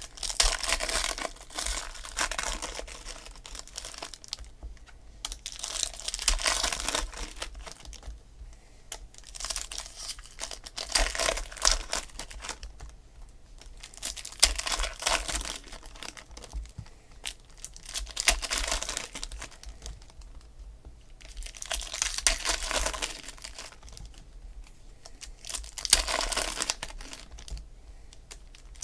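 Football trading cards handled and flipped through by hand: bursts of card rustling and clicking, about every four seconds.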